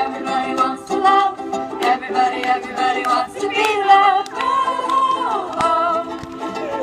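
A ukulele ensemble strumming and singing in several-part harmony, the voices holding long notes.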